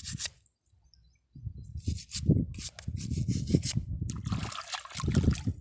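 Tuway shells being scrubbed with a brush in water to get the mud off: quick repeated rough brushing strokes with trickling and splashing water. The scrubbing starts about a second and a half in.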